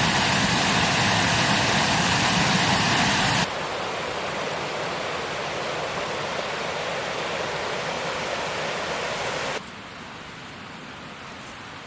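Rushing water of a small mountain stream tumbling down in little waterfalls, a steady hiss. It drops abruptly to a quieter level about three and a half seconds in, and again about two seconds before the end.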